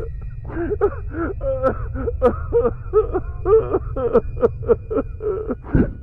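A voice in quick, rising and falling syllables with no clear words, over music with a steady low bass.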